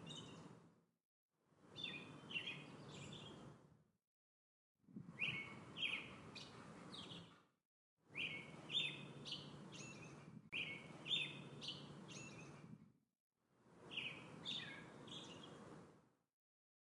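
A songbird singing short, quick chirping phrases over faint outdoor background noise, in bursts of two to three seconds that cut off abruptly into brief dead silence, about six times.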